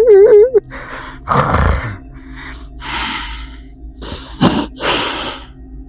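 A man's voice in quick, pitched, repeated pulses that stop about half a second in, followed by heavy gasping breaths and hard exhalations close to the microphone.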